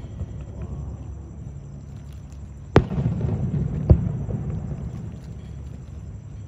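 Aerial firework shells bursting: two sharp booms about a second apart near the middle, each trailing off in a low rolling echo.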